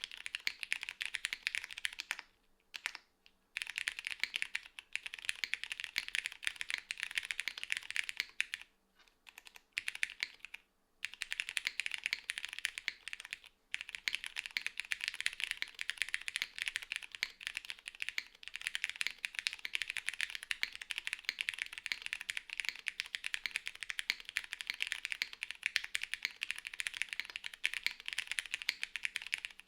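Typing on a Lily R2 plateless, gasket-mounted mechanical keyboard fitted with Cherry MX Petal switches and GMK Shoko keycaps: a dense, continuous run of key clacks. The typing breaks off briefly about two and a half seconds in, again for about two seconds around nine seconds, and for a moment near thirteen and a half seconds.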